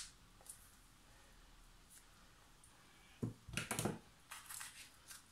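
Faint room tone, then from about three seconds in a few short, soft knocks and scrapes of a small kitchen knife cutting a peeled lemon over a small bowl.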